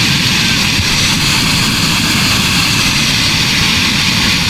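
A mudflow of mud, water and rocks rushing down a channel: a loud, steady roar.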